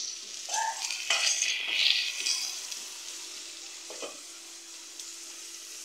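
Sliced onions sizzling in oil in a pot, stirred and scraped with a wooden spoon; the stirring is loudest in the first couple of seconds, then a fainter steady sizzle. The onions are softening on their way to golden brown as the base of a stew.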